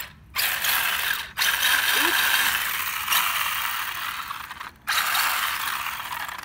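RC buggy's drivetrain run under throttle in three bursts with a harsh ratcheting of gear teeth skipping, the sign of a cracked rear differential bevel gear.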